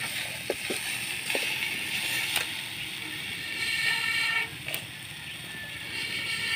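A steel ladle knocking and scraping in a wok of potato slices frying over a wood fire. Over it runs a steady high-pitched droning tone that breaks off a little after halfway and returns near the end.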